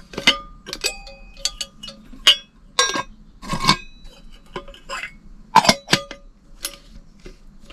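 Stainless steel Zebra billy cans and the small folding gas stove and gas canister clinking and knocking together as they are handled. It is a string of sharp metal clinks, some ringing briefly.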